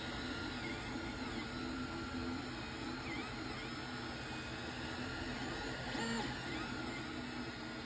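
Creality Ender 3 3D printer running a print: its stepper motors sing in short tones that keep changing pitch as the print head moves back and forth laying down the first layer, over a steady whir.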